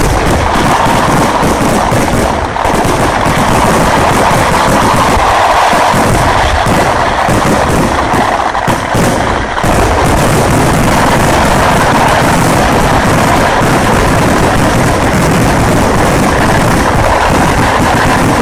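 Vedikettu fireworks barrage: a dense, unbroken run of firecracker explosions that rattles like machine-gun fire, with brief lulls about two and a half and nine and a half seconds in.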